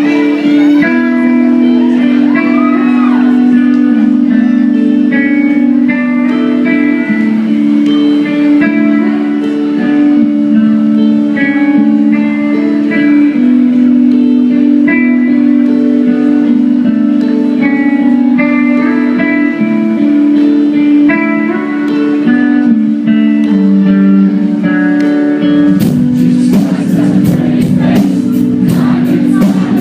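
Amplified electric guitar played live, with ringing picked notes over a held low drone, heard through a phone in a large hall. About 26 seconds in, the full band comes in with drums keeping a steady beat.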